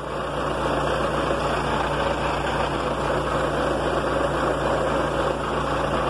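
Semi-truck's diesel engine idling steadily.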